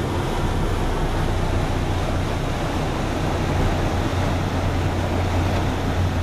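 Sportfishing boat's engines running under way, a steady low drone, with the rush of its wake and wind noise over it.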